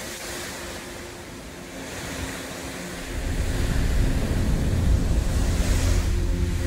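Hurricane wind rushing steadily. From about three seconds in, heavy gusts buffet the phone's microphone with a loud low rumble.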